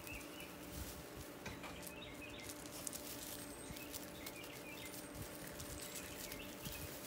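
Golden retriever puppies rustling through a clump of grass and scuffing on gravel: a light, steady crackle of small clicks. Birds chirp faintly a few times.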